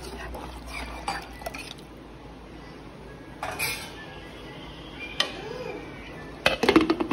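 A steel spoon clinking against a stainless-steel cooking pot as a curry is stirred, in scattered knocks, with a quick run of louder clinks near the end.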